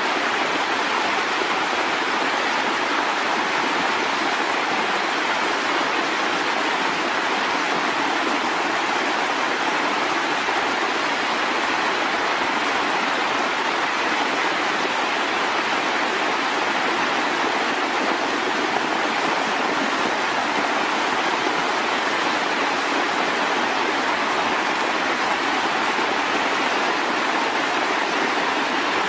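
Floodwater rushing in a steady, loud, unbroken stream.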